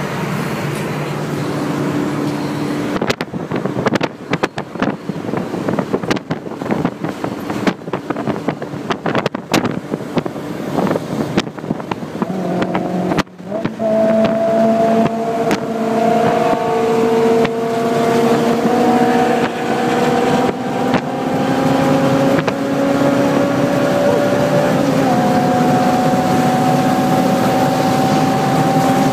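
Honda S2000 four-cylinder engine pulling hard at autobahn speed, with heavy wind buffeting on the microphone for the first dozen seconds. After a brief drop about thirteen seconds in, the engine note comes through clearly as several steady tones that climb slowly in pitch as the car keeps accelerating.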